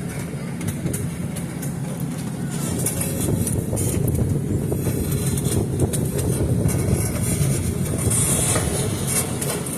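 Running noise of a moving passenger train heard from on board: a steady low rumble with frequent light rattles and clicks, growing louder about three seconds in.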